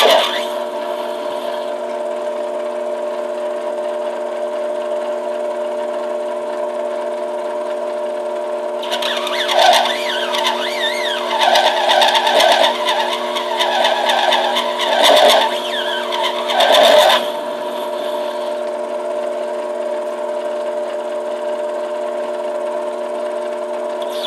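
Metal lathe running with a steady whine as a turning tool cuts a spinning acrylic pipe-stem blank; the cutting comes through as several louder, rough bursts between about nine and seventeen seconds in.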